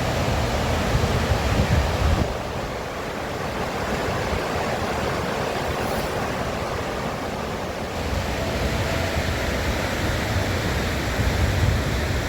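River water rushing steadily, with wind buffeting the microphone in low gusts near the start and again near the end.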